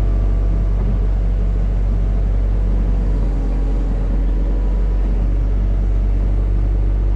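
Hitachi hydraulic excavator's diesel engine running steadily, a loud, even low hum that holds the same note throughout.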